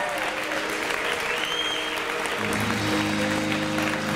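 A roomful of guests applauding over music; about two and a half seconds in, new music with steady sustained low notes comes in under the applause.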